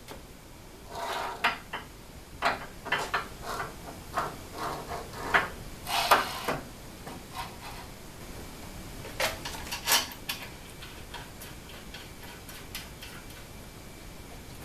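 Irregular metallic clicks, clinks and knocks as small hardware and tools are handled against an aluminium-extrusion CNC router frame. After about ten seconds they give way to faint, regular ticking about twice a second.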